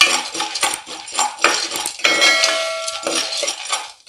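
Steel spoon stirring dried corn kernels in hot oil in an aluminium pressure cooker, scraping and clattering against the pot, before the kernels have begun to pop. A ringing tone sounds for about a second, starting about two seconds in.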